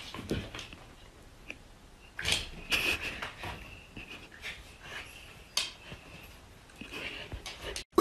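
A Samoyed's short, quiet whines and snuffling breaths, scattered through, the clearest pair about two seconds in.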